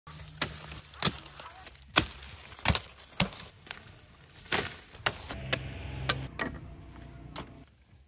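Sugarcane being chopped with a machete: about a dozen sharp, irregular strikes, with a low steady hum underneath.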